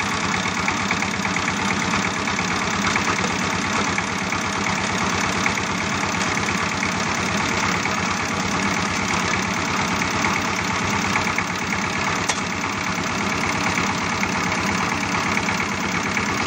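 A motor running steadily with a fast, even pulsing rhythm.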